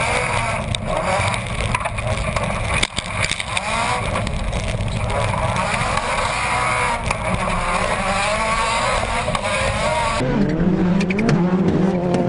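Subaru rallycross race car engine at full racing effort, its pitch climbing and dropping through gear changes over heavy noise. About ten seconds in the sound cuts to a clearer, lower engine note that rises and falls with the throttle.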